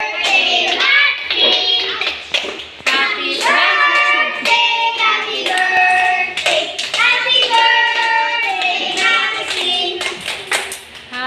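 A group of young children singing a birthday song together while clapping their hands.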